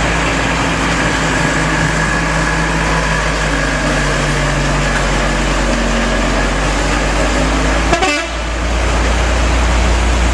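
Heavy trucks' engines running slowly with wet road noise, and a vehicle horn held steadily for about three seconds starting about a second in.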